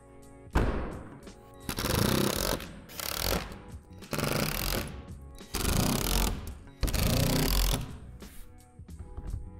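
Cordless power drill driving screws into the shed's plastic wall panels, in about five short runs, each half a second to a second long, with short pauses between them.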